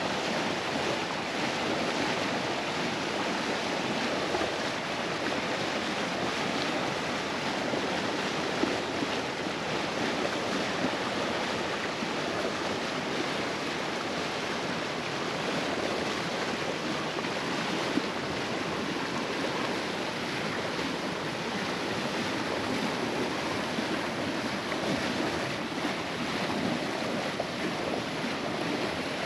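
Steady rush of sea water and wind past a sailboat under way, with wind on the microphone.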